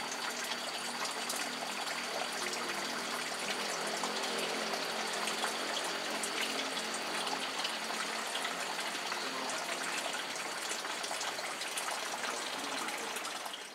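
Water running and splashing steadily into a garden fish pond.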